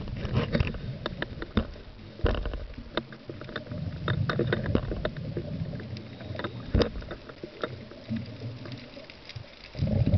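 Underwater ambience picked up through a camera's housing: a low, uneven rumble with many scattered sharp clicks and crackles, and a louder low rush just before the end.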